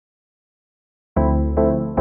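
Silence, then background music starts abruptly about a second in: keyboard chords struck about twice a second.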